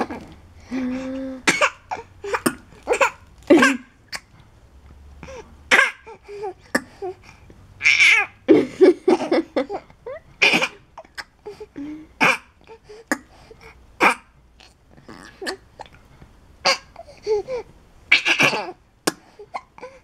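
A three-month-old baby giving a dozen or so short, put-on coughs spread through, not from illness but to get kisses. Between them come babbling coos and some laughter.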